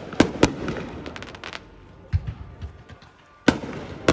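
Fireworks going off: a quick run of sharp bangs at the start, a scatter of smaller crackling pops about a second in, then a fresh cluster of loud bangs near the end.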